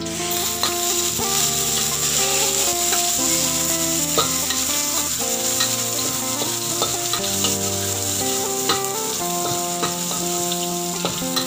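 Chopped garlic frying in hot oil in a wok, breaking into a steady sizzle as it goes in, while a metal spatula stirs it with occasional clicks and scrapes against the pan.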